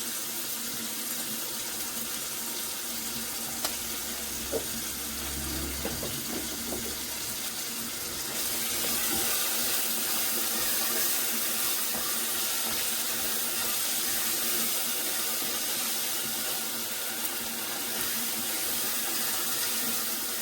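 Steady hiss of water that gets louder about eight seconds in, with a few light knocks a few seconds after the start.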